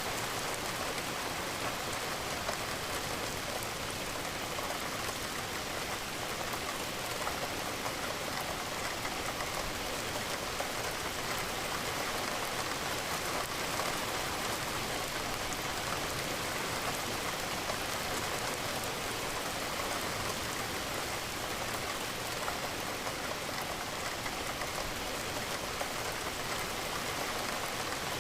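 Steady rain, with raindrops pattering against a window.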